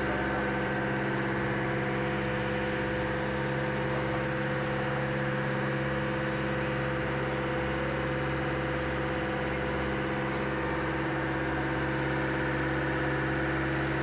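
A tour boat's engine running steadily, a constant even hum over a steady rush of water.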